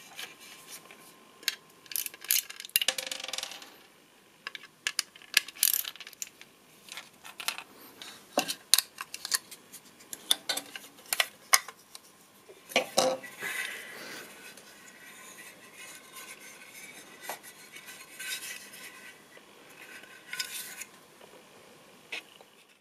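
Plastic and metal parts of a 1:24 scale model car clicking, snapping and clattering as they are prised apart by hand. Many quick clicks in the first half, then a knock and a creaking scrape that lasts several seconds before stopping.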